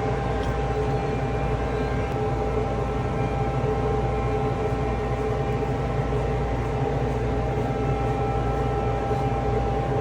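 Steady mechanical drone of commercial kitchen equipment, a constant hum with a few fixed tones and no change throughout.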